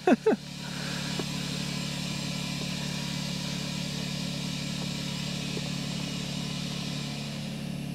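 Compressed air hissing through an air chuck into a nearly flat tractor tyre as it is reinflated from about 4 to about 20 psi, over a steady motor hum. The hiss settles in about a second in and holds steady.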